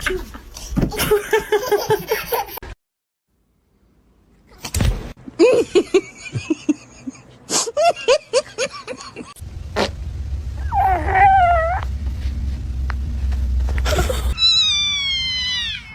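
Cat meowing: a wavering call about two thirds of the way in and a high, falling cry near the end, between short stretches of household noise and clicks.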